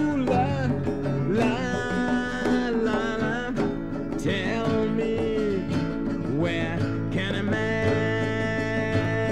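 Early-1970s demo song played back from an acetate disc: guitar accompaniment under a melody line that bends and slides in pitch, with no sung words.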